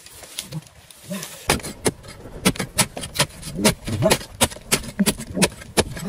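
A metal pipe striking and chipping at the hard earth of a termite mound: a quick, irregular run of sharp knocks that starts about a second and a half in. Short vocal sounds that bend in pitch come in among the knocks.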